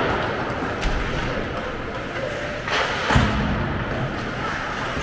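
Ice hockey game in a rink: a steady arena hubbub with sharp knocks of sticks and puck on the ice, and a heavier thud about three seconds in.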